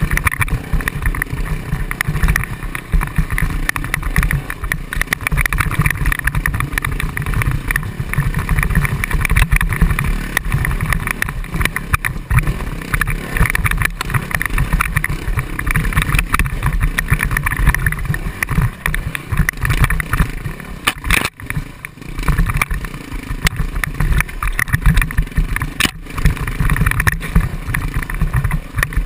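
Off-road dirt-bike engine running and revving, rising and falling with the throttle over a rough trail, with heavy wind rumble and buffeting on the action camera's microphone. The sound drops out briefly about three quarters of the way through.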